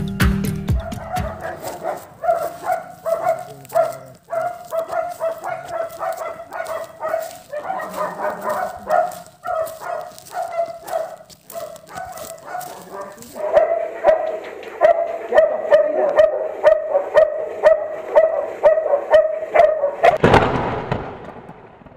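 A dog barking over and over in short, quick barks, about three a second in the latter half. A rushing whoosh swells up near the end.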